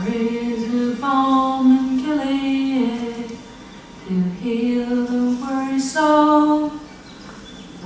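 A woman singing a slow hymn melody unaccompanied, holding long notes in two phrases with a short pause between them, heard from a film soundtrack played through the room's speakers.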